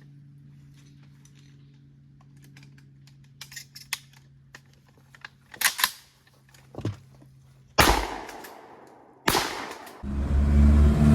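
A faint steady hum with scattered small clicks, then two gunshots about a second and a half apart, each trailing off in a decaying echo. Music starts about a second before the end.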